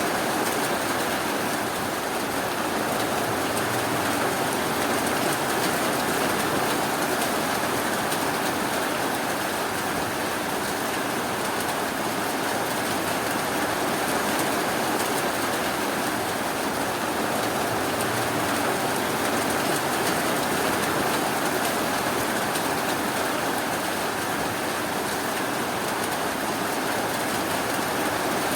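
Steady, even rainfall, a continuous hiss of falling rain with no thunder or single drops standing out.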